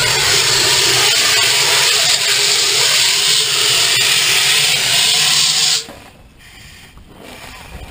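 Hand-held fire extinguisher discharging with a loud, steady rushing hiss that cuts off suddenly about six seconds in.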